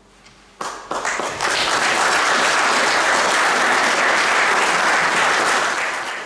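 Audience applause after a choir piece. It breaks out after a brief hush, about half a second in, and quickly fills into steady, dense clapping that starts to fade near the end.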